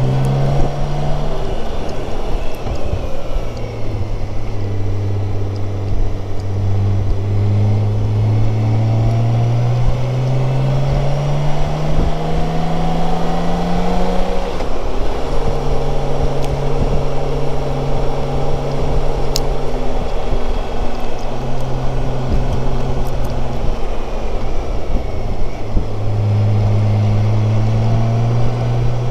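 BMW K1600GTL's inline-six engine on the road, its pitch climbing steadily under throttle for about ten seconds, then falling away about halfway through, holding steady, and dropping again near the end before pulling once more. Steady wind rush over the helmet-mounted microphone runs underneath.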